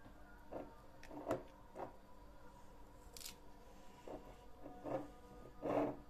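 Fingers pressing soft bitter melon flesh down into a small glass jar: a string of short, soft handling sounds at irregular intervals, the loudest near the end. A faint steady hum runs underneath.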